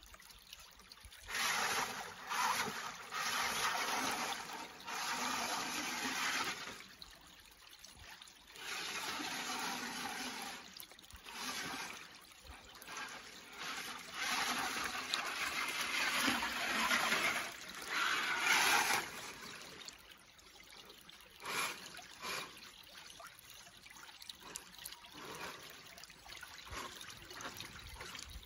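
An RC car's tyres churning through a shallow rocky creek, throwing up water in repeated stretches of splashing for most of the first twenty seconds. After that the creek trickles more quietly, with a couple of short splashes.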